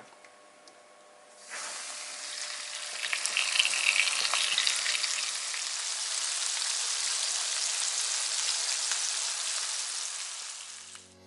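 Flour-dredged chum salmon pieces sizzling in hot oil in a frying pan. The sizzle starts suddenly about a second and a half in, crackles most in the next few seconds, then settles to a steady sizzle that fades near the end.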